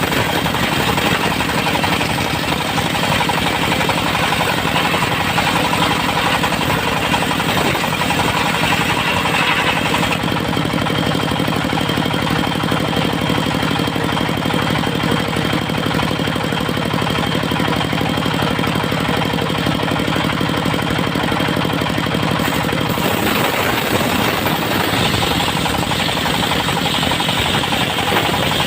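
Engine-driven portable circular sawmill running continuously with a rattling, knocking beat. The sound changes about ten seconds in, turning steadier and more tonal, and changes back again near the end.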